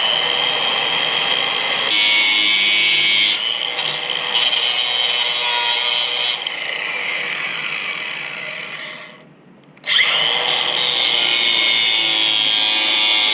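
Electric grinder with an abrasive cut-off wheel running and cutting through the protruding ends of steel bolts, a steady high whine with grinding noise. About nine seconds in it winds down, then it is switched on again and spins back up.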